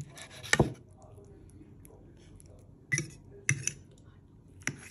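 Metal fork clinking and scraping against a china plate while cutting through baked cannelloni: a few sharp clinks, the loudest about half a second in and more near the end.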